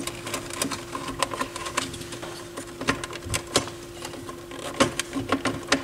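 Irregular small clicks and rattles of wires and plastic wire-management clips being handled inside the chassis of a Pioneer SX-737 stereo receiver, as the wiring is freed from the switch and volume control board. A faint steady hum runs underneath.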